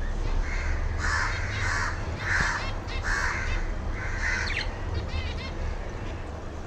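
Caged birds calling: a series of about five harsh, raspy calls, followed by small quick chirps near the end.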